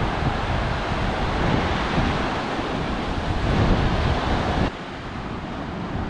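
Surf washing onto a sandy beach, a steady rushing wash with wind buffeting the microphone in low rumbles. The level drops suddenly near the end and the surf goes on more quietly.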